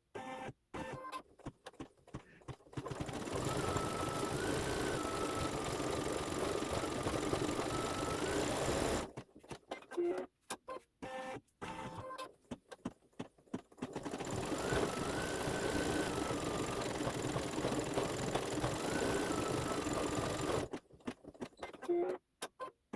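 Embroidery machine stitching out a design. There are two long steady runs of about six seconds each, the motor pitch stepping up and down during them. Between and around the runs come stretches of short stop-start stitching.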